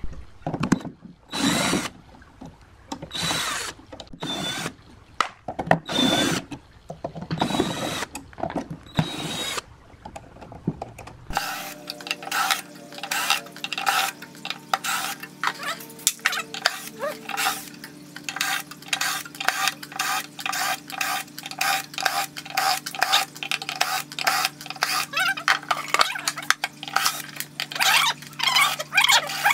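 Power tool in use: a few short bursts about a second apart, then, after an abrupt change about a third of the way in, a steady motor hum under rapid repeated scraping strokes, several a second.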